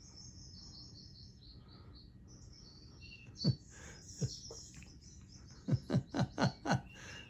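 Faint bird chirping and high trills from the soundtrack of a TV video made for cats. There are a few short sharp notes, five of them in quick succession near the end.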